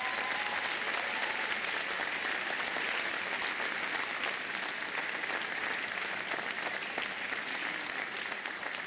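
Audience and orchestra applauding steadily.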